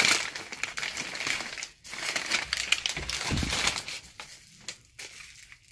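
Brown kraft packing paper crumpling and rustling as it is handled and pulled away, in irregular crackly bursts that die down near the end.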